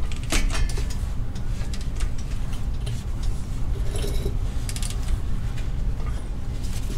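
Scattered light metallic clinks and taps of hand tools working on a clutch pressure plate's bolts, over a steady low hum.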